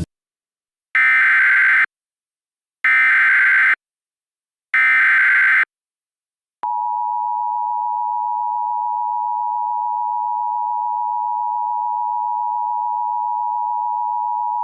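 Emergency Alert System tones: three one-second bursts of SAME header data with gaps of about a second between them, then the steady two-tone EAS attention signal starting about six and a half seconds in. Together they announce an emergency alert, here a Severe Thunderstorm Warning.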